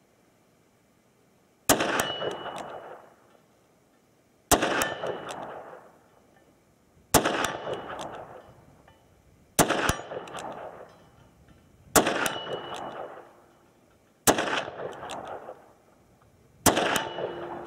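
Seven .357 Magnum shots from a Smith & Wesson 686 Plus revolver, one full cylinder, fired at a steady pace about two and a half seconds apart. Each shot is a sharp crack that trails off into about a second of echo.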